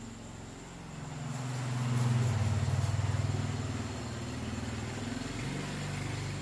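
A motor vehicle engine running, a low hum that grows louder about a second in, is loudest around two to three seconds in, then slowly fades.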